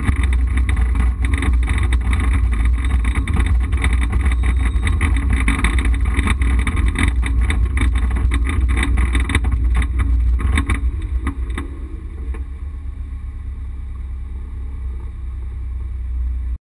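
Rally car engine running hard under load, heard inside the cabin, with road and cabin noise. About ten to eleven seconds in it drops to quieter, lighter running as the car slows, and the sound cuts off abruptly just before the end.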